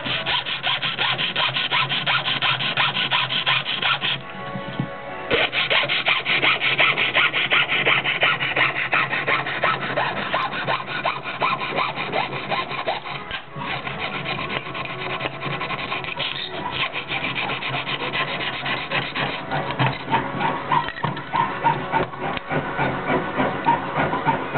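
Jeweller's piercing saw cutting a shape out of thin sheet metal against a wooden bench pin, with fast, even rasping strokes. The sawing stops briefly about four seconds in, then goes on.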